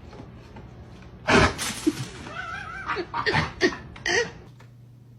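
A dog making several short, sharp vocal bursts, with a brief wavering whine in the middle.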